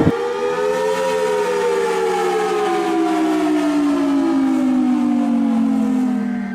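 Outdoor warning siren winding down. Its pitch rises slightly in the first second, then falls slowly and steadily for about five seconds.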